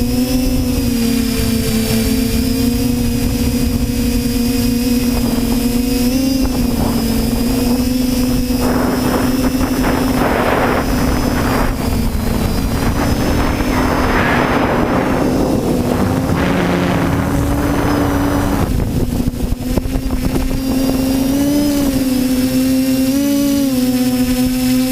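TBS Discovery quadcopter's electric motors and propellers humming steadily in flight, the pitch wavering slightly with throttle. A rushing noise joins in through the middle.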